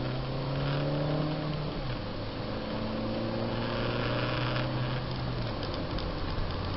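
Car engine heard from inside the cabin, pulling under acceleration: its note climbs slowly, drops at a gear change about two seconds in, climbs again, then falls away near the end, leaving steady road noise.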